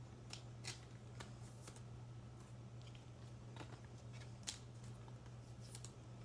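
Trading cards being handled and slid into plastic sleeves: faint, irregular soft ticks and rustles over a steady low hum.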